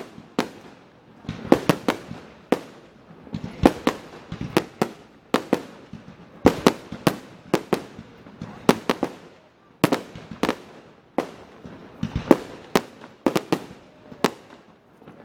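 Fireworks display: an irregular volley of sharp bangs, often several a second, with crackling between them.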